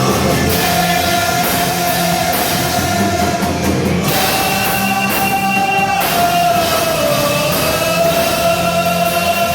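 Gospel rock band playing an instrumental passage of a worship song, with drums, guitar and long held notes that bend slowly in pitch.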